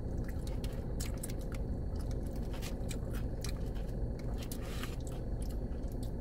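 Close-miked chewing of a bite of a fried fish sandwich, with many small wet mouth clicks, over a steady low rumble inside the car.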